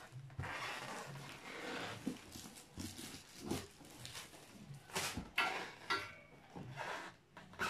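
Cardboard box and packaging being handled and opened: uneven rustling and scraping, with a few sharp knocks.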